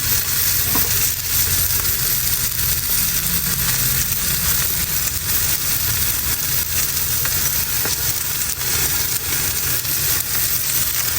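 Salmon sizzling as it cooks in a hot pan: a steady frying hiss over a low, steady rumble.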